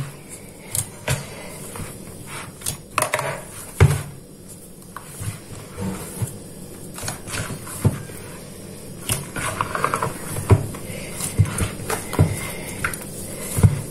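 Hands kneading and pressing oat-flour dough in a plastic bowl: irregular knocks and thumps as the dough is worked.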